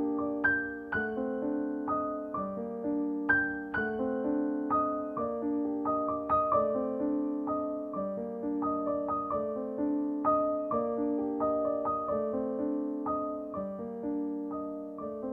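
Background piano music: a gentle melody of struck notes, a few a second, each ringing and fading.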